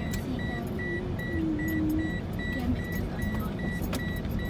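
Car interior on the move along a rough road: a steady low rumble of engine and tyres, with a high beep repeating about two and a half times a second and faint music underneath.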